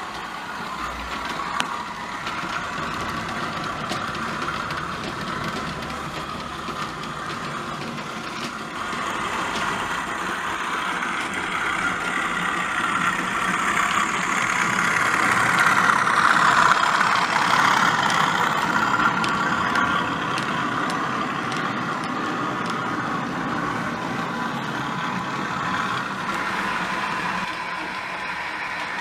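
OO gauge model diesel locomotives with DCC sound running, their sound decoders playing diesel engine sound through small onboard speakers, with faint clicking of wheels on the track. It swells to its loudest about halfway through as a locomotive runs close by, then settles back.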